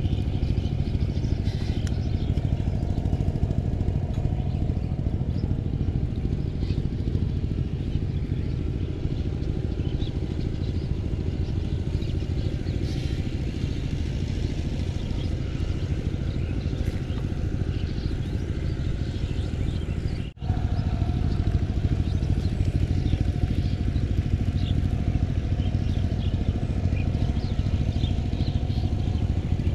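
A steady, low engine-like hum, running unchanged with faint scattered high ticks above it; the sound cuts out for an instant about twenty seconds in.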